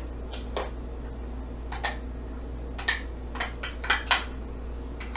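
A metal spoon clinking and tapping against a measuring cup and a metal mixing bowl while shaving cream is spooned out into the bowl: about ten short, irregular clinks.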